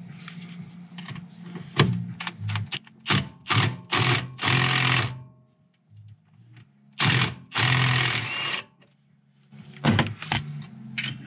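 Cordless impact wrench hammering on a steering rack mounting bolt, in a few short trigger bursts and then two longer runs of about a second each, with pauses between them.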